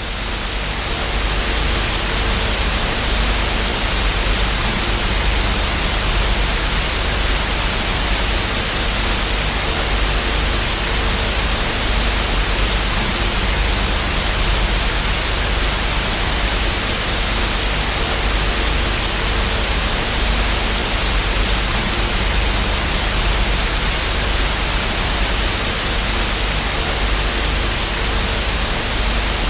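Television static: the loud, steady hiss of an analogue TV with no signal, with a low rumble and a faint hum underneath.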